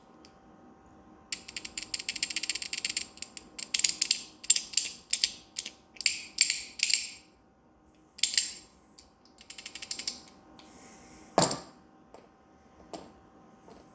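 Worn rod-end bearing on a weight jack clicking and rattling in bursts as it is worked back and forth, the clicks coming from the play in the bad bearing. A rapid run of clicks comes early, spaced groups follow, and there is one louder knock near the end.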